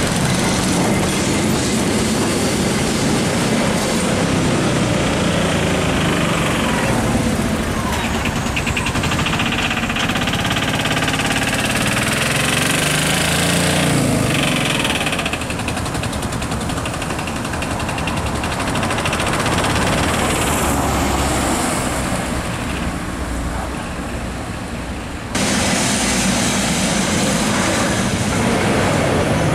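Street traffic in which a vintage Carris tram runs on its rails and small tuk-tuk motors pass. About 25 seconds in, the sound changes abruptly to a louder scene in which a yellow tram runs close by.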